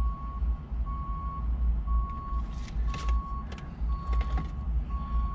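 A car's interior warning chime beeping steadily, one single-pitched beep about every second, over a low rumble from the car.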